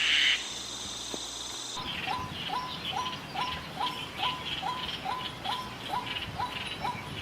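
Wild bird sounds: a short high chirp at the start, then after an abrupt cut about two seconds in, a short upward-hooked note repeated evenly about twice a second over a higher pulsing buzz.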